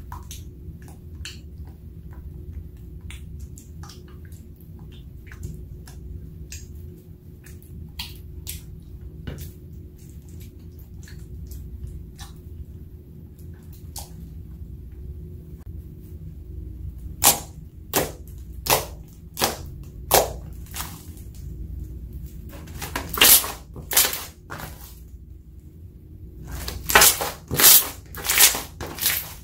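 Slime being worked: first soft wet clicks as a silicone spatula stirs the thickening glue in a glass dish, then loud sticky pops and clicks as the slime is folded and pressed by hand, single at first and then in quick runs near the end. A steady low hum lies underneath.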